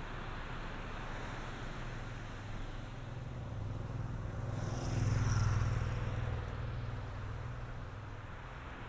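A motor vehicle's engine passing, with a steady low hum that grows louder to a peak about five seconds in and then fades away.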